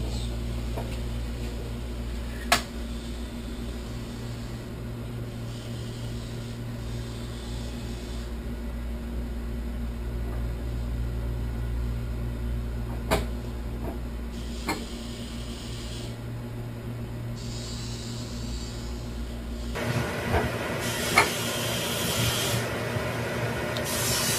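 Low steady hum with a few single sharp clicks: one about two and a half seconds in, and two more between thirteen and fifteen seconds. Near the end a louder hiss takes over.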